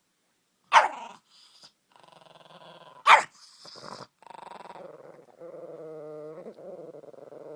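A dog barking and growling: two sharp, loud barks, about a second in and about three seconds in, with lower drawn-out growling between and after them.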